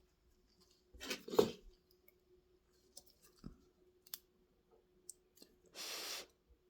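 Light clicks and knocks of small tools being handled while soldering a tiny flight-controller board, loudest about a second in, with a brief hiss near the end.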